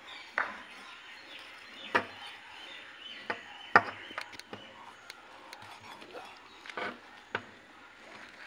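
Knives cutting slits into whole pomfret fish on a steel platter: irregular sharp clicks and knocks of the blades, the loudest a little past the middle.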